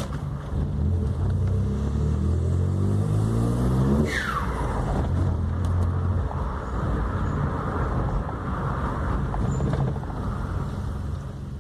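VW Up TSI's turbocharged three-cylinder engine accelerating, its pitch rising for about four seconds. Then the throttle lifts: the turbo whistle falls away quickly with the turbo flutter, and the engine settles to a lower, steadier sound.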